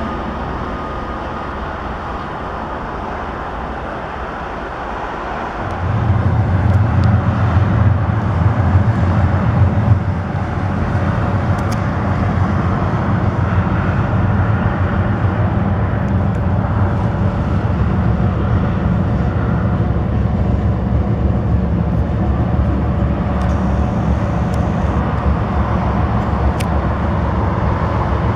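Diesel locomotive engine running steadily, with a deep throbbing rumble that comes in suddenly about six seconds in and holds loud from then on.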